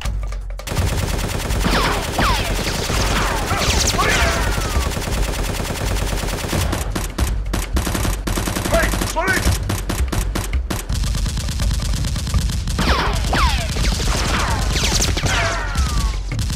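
Sustained rapid automatic gunfire sound effect, with falling whistles at two points, about two seconds in and again near the end.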